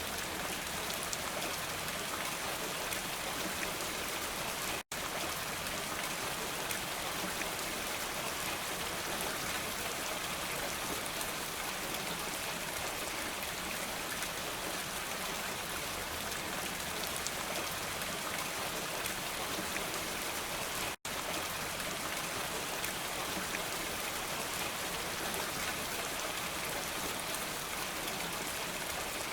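Steady rain, a dense even patter of raindrops on a surface. The sound cuts out for an instant twice, about five seconds in and again about twenty-one seconds in.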